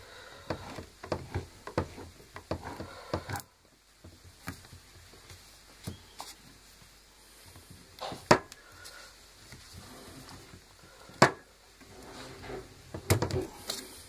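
Irregular metal clicks and scrapes of a small screwdriver tip prying at a stubborn retaining ring (circlip) on the shaft of a rotary hammer's gearbox mechanism, with a few sharper clicks as the tip slips off the ring.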